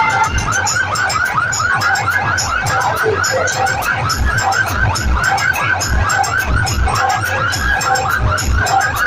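DJ sound system of horn speakers and bass boxes playing at full power: a fast, warbling, siren-like electronic tone repeating about four or five times a second, over heavy bass thumps at uneven spacing.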